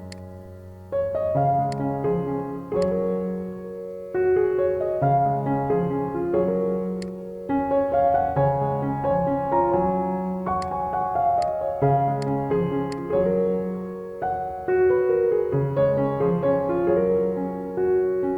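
Instrumental background music: piano-like keyboard chords and melody in short phrases that start afresh every few seconds, with a few light high ticks.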